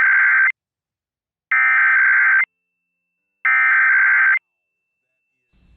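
Emergency Alert System SAME header: three bursts of digital data tones, each about a second long with a second of silence between them, the first already under way. This encoded burst tells receiving stations the alert's event type and area, here the header of a required weekly or monthly test.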